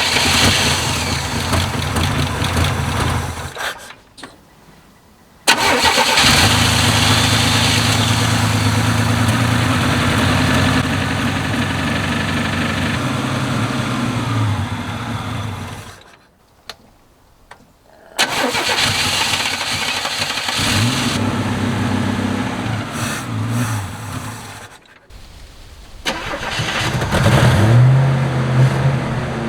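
Chevy squarebody pickup's small-block V8 being cranked over on the starter in about four long attempts with short pauses between them, trying to start after years parked.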